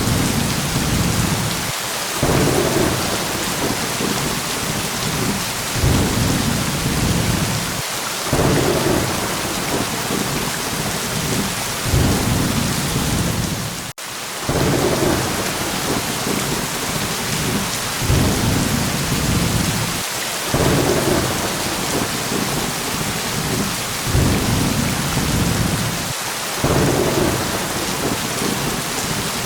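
Steady rain hissing, with low rolls of thunder rising and fading every few seconds. The sound drops out for an instant about halfway through.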